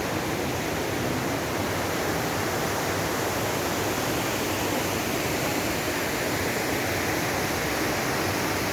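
Steady rushing of a waterfall and its rapids, an even unbroken roar of falling water.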